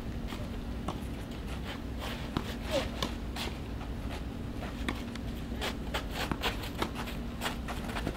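Tennis balls being struck by rackets and bouncing on the court during a rally: a series of short, sharp knocks at irregular intervals.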